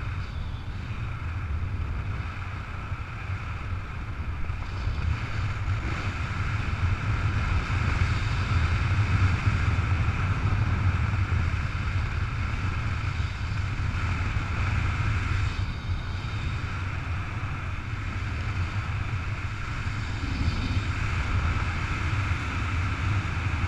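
Airflow of a paraglider in flight rushing over the camera microphone: a steady wind rush with a low rumble, a little louder from about five seconds in.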